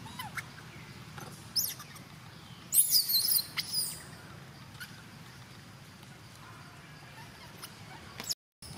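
High-pitched, wavering squeals from a baby macaque: a short one about one and a half seconds in, a louder run of squeals around three seconds in, and another brief squeak near the end.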